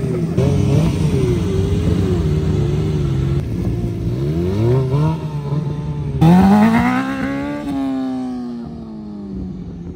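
Stunt motorcycle engine revving as the rider holds a wheelie. Its pitch wavers with the throttle, climbs steeply around five seconds in, and jumps to its loudest just after six seconds. It then falls slowly and fades.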